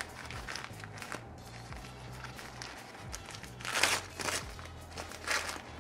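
Paper rustling and crinkling as a newspaper-wrapped succulent cutting is unwrapped by hand, loudest about four seconds in and again shortly before the end. Soft background music with a steady bass runs underneath.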